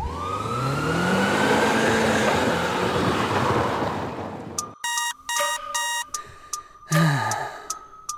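Cartoon sound effect of a vehicle speeding past: a rushing noise with a rising engine tone for about four and a half seconds. It is followed by a few short electronic beeps.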